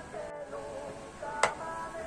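Background music playing a wavering melodic line, with one sharp tap or click about one and a half seconds in.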